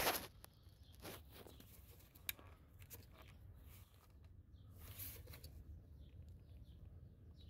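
Faint handling of the F-150's plastic engine-bay fuse box panel as its tabs are pressed home: a scrape at the start, scattered light clicks with a sharper snap about two seconds in, and a soft rustle around five seconds, over a low steady hum.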